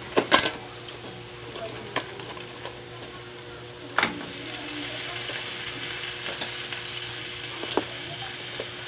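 Hot oil sizzling steadily in a steel wok as chopped aromatics and chilli fry, with a metal spatula clinking and scraping against the wok a few times, sharpest near the start and about four seconds in. A faint low hum runs underneath.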